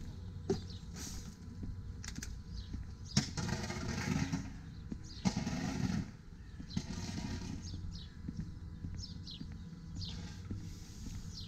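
Outdoor ambience: a steady low rumble, with two louder rushes of noise around the middle and a few short, high, falling chirps in the second half.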